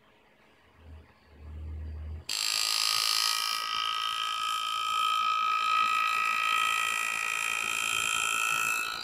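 Pneumatic engraving handpiece running, a steady high buzz with several held pitches as its graver cuts a line into a metal plate. It starts abruptly about two seconds in, after a low hum of a second or so, and stops suddenly near the end.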